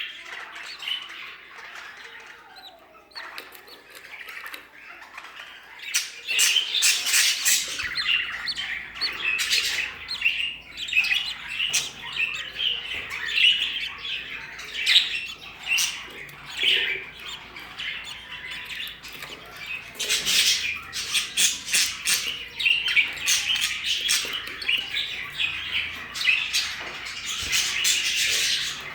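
Budgerigars chattering and chirping nonstop, broken by frequent sharp squawks. A faint low hum joins in about a quarter of the way through.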